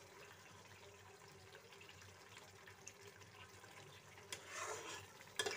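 Thick pea-and-onion masala frying in oil in a kadai with a faint sizzle, cooked down to the stage where the oil separates at the sides. A metal spatula stirs and scrapes through it, louder for a moment near the end with one sharp scrape.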